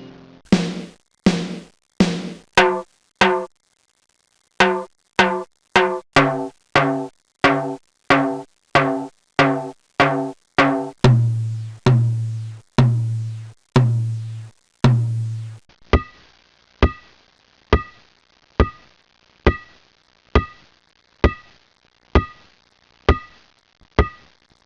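A long series of short percussive hits, each with a brief pitched ring, a pause of about a second near the start and then quicker ones; from about halfway a low pitch rings under each hit for a few strokes. After that comes an evenly spaced run of sharp, higher-pitched wooden-sounding knocks, a little more than one a second.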